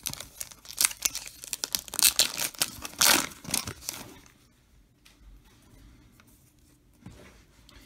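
Foil wrapper of a trading-card pack being torn open, crinkling and ripping for about four seconds, with the loudest rips about two and three seconds in.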